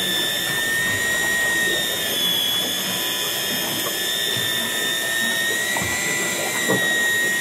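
Electric fishing reel motor winding line in under load with a steady, high-pitched whine, its pitch wavering slightly as the rod stays bent.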